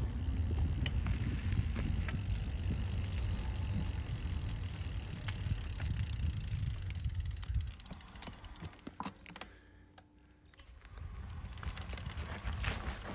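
Mountain bike ridden along a trail: low wind rumble on the microphone with the clatter and clicks of the bike, dropping to near quiet with a few sharp clicks about two-thirds of the way through before the riding noise picks up again.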